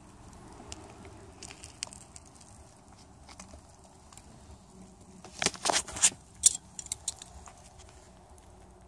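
Eggs frying in a small frying pan over a bed of coals: a faint sizzle with light crackling, broken by a quick run of sharp clicks and knocks about five and a half to six and a half seconds in.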